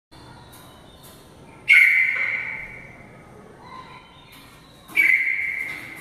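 Red-vented bulbul calling: two loud, sharp whistled calls about three seconds apart, each dying away over about a second in the room.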